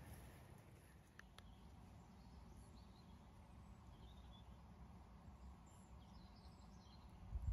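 Near silence: faint outdoor background noise with a few faint, short bird chirps scattered through the second half.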